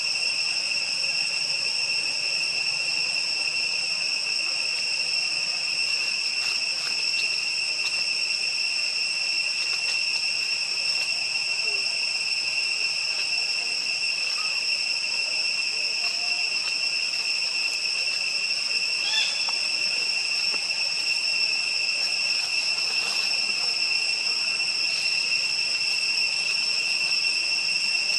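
Steady, high-pitched drone of a forest insect chorus, an even hum on two high pitches that does not let up.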